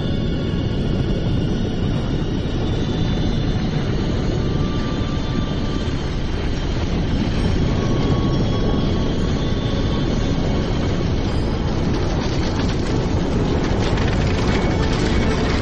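Documentary soundtrack: a steady deep rumble, like wind, under faint sustained music tones, growing fuller in its last few seconds.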